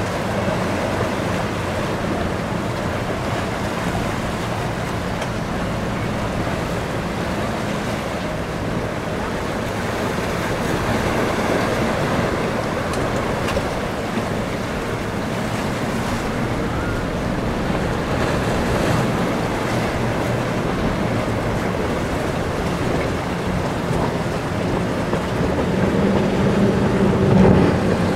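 Motorboats running at speed through choppy inlet water: a steady rush of surf and spray with an engine drone beneath, and wind on the microphone. The engine sound grows louder near the end as a center-console boat passes close.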